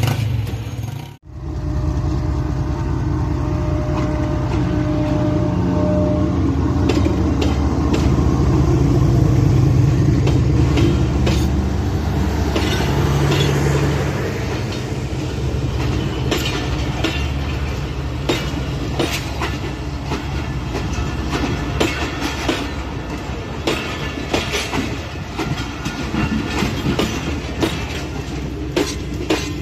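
Pakistan Railways passenger coaches rolling past, their wheels clacking and knocking over the rail joints. A steady diesel drone runs under it and fades about halfway through.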